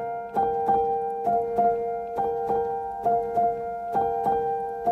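Background piano music: a gentle repeating figure of notes struck about three times a second over a held lower note.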